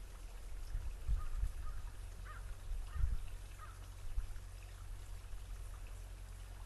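A bird calls three or four times, short calls, over the steady hiss of a running stream. Underneath are a steady low rumble and a few dull thumps, the loudest about a second in and again about three seconds in.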